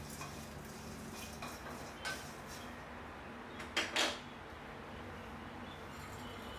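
A few brief kitchen handling sounds over a faint steady hum: a short clack about two seconds in, then a louder rattle lasting under half a second around four seconds in, like a container or lid being handled.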